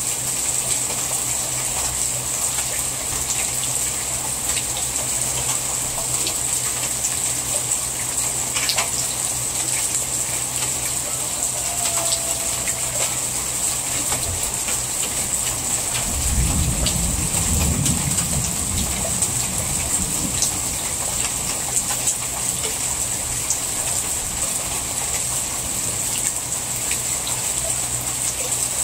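Steady heavy rain falling on a garden and patio, with water streaming off the roof edge. A low rumble swells for a few seconds around the middle.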